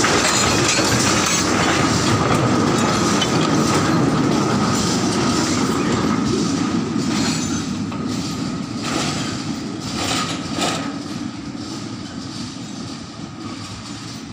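Narrow-gauge plantation train of small steel hopper wagons and a tank wagon rolling past on light rails, its wheels and wagons clattering, with a steady high whine over the rattle. It fades as it moves away in the second half, with a few sharp clacks of wheels over the rail joints.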